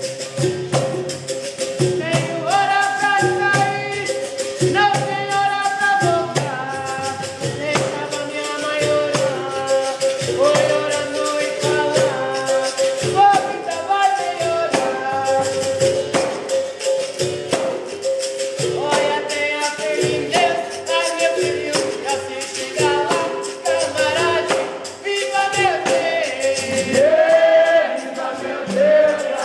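Capoeira Angola bateria playing: berimbaus struck with a stick, shaken caxixi rattles and a tambourine-like pandeiro keep a steady rhythm while a man sings over them.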